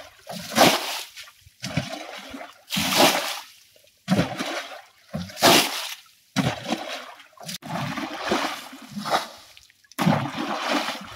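Water being bailed out with a hand-held scoop: each scoopful is thrown out with a splash, about one a second, in a steady rhythm.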